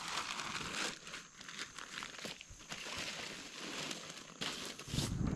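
Irregular crinkling and rustling, like nylon or plastic gear being handled. A low rumble sets in near the end.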